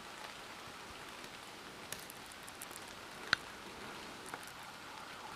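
Faint steady outdoor hiss on a wet forest track, broken by a few sharp ticks, the loudest about three seconds in.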